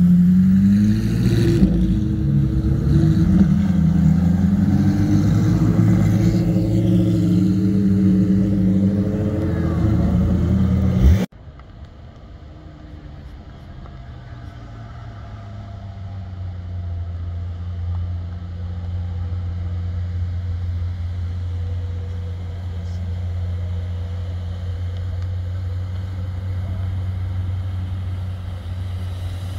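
Ferrari 458's V8 engine revving as the car pulls away past, its pitch rising and falling. After a sudden cut about a third of the way in, a quieter, steady low engine drone comes from a car moving slowly, growing a little louder before it levels off.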